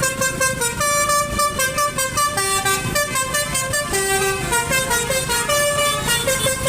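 Basuri telolet horn playing a fast melody of short pitched toots, several notes a second, over a low engine rumble.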